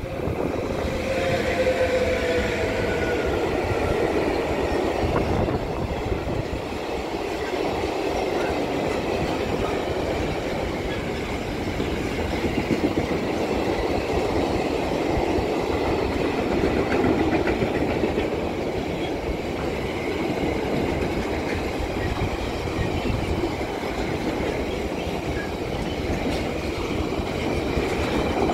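Electric freight train passing close by: the locomotive goes by with a falling whine in the first few seconds, then a long run of freight wagons rolls past with clickety-clack over the rail joints. Strong wind buffets the microphone throughout.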